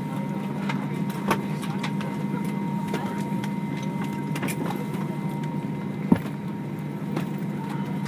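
Steady low hum inside an Airbus A320 cabin standing at the gate, with a faint high steady tone that fades out about two-thirds of the way through. Scattered clicks and knocks sound over it, the sharpest about six seconds in.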